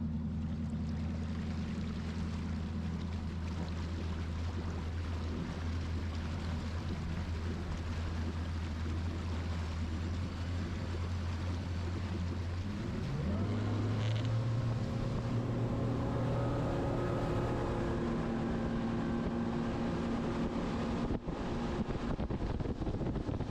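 Outboard motor running steadily at low speed, then throttled up just past halfway and holding a higher, steady engine speed.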